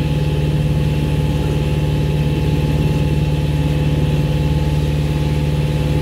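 Boat engine running steadily at low speed: a constant low drone that holds one pitch, with no change in speed.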